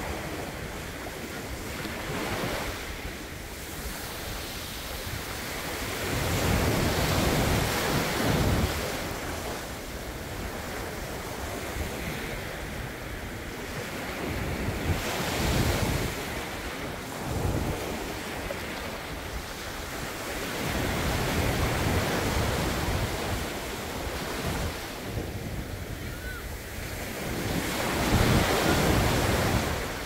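Small sea waves breaking and washing up a sandy beach, the surf rising and falling every several seconds as each wave comes in.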